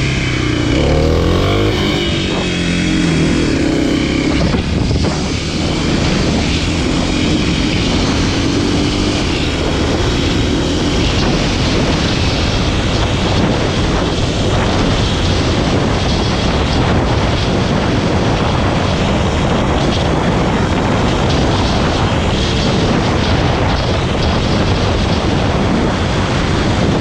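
Kawasaki KLX300SM's single-cylinder four-stroke engine running under way, its pitch rising and falling for the first few seconds. After that it settles into a steady rush.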